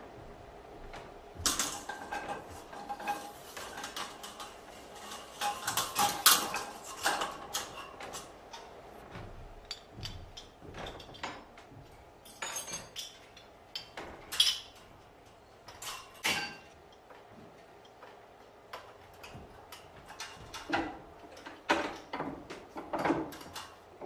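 Irregular metallic clanks, knocks and rattles of sawmill machinery parts, busiest in the first several seconds and then coming singly with quieter gaps.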